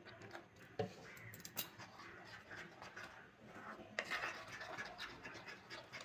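Metal spoon stirring and scraping thick gram-flour batter in a bowl: faint wet scraping with light clicks of the spoon against the bowl, the sharpest about a second in and again about four seconds in.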